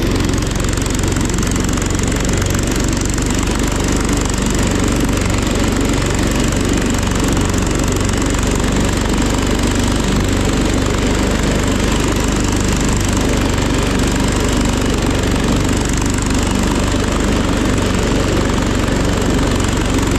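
John Deere 112 garden tractor's single-cylinder engine running steadily under load while mowing grass.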